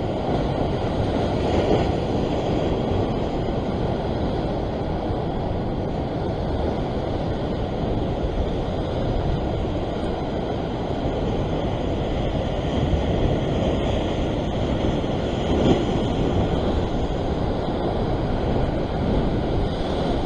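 Wind rushing on the microphone over ocean surf washing against the rocks, a steady noise that swells louder briefly about two seconds in and again about three-quarters of the way through.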